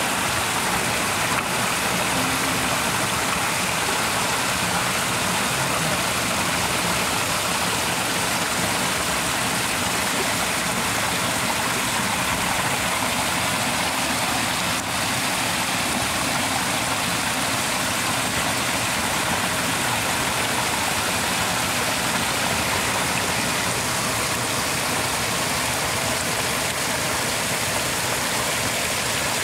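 Muddy water rushing steadily through a shallow channel, an even, unbroken rush.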